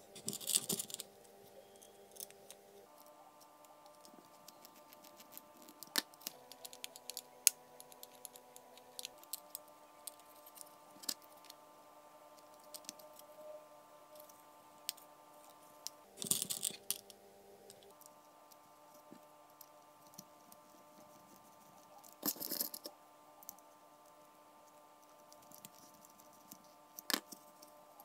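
Small screws and 3D-printed plastic parts rattling and clicking as a joystick gimbal is handled and screwed together: a few short bursts of rattling with scattered sharp clicks between. Soft background music of sustained chords runs underneath.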